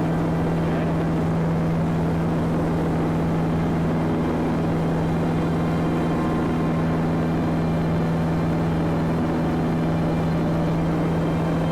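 Cessna 172 piston engine and propeller droning steadily at an even cruise setting, one constant pitch with no change in level.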